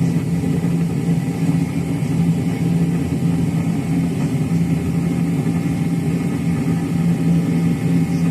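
Steady drone of an airliner in flight heard from inside the cabin: a constant low engine hum under an even rush of air noise.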